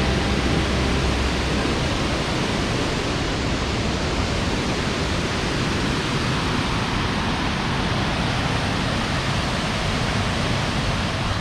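Steady, even rushing of a large waterfall, a continuous roar of falling water without surges.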